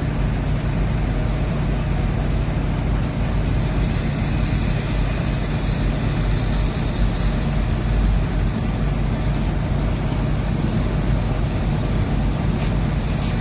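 Intercity bus on the move: a steady low engine drone with even road and tyre noise.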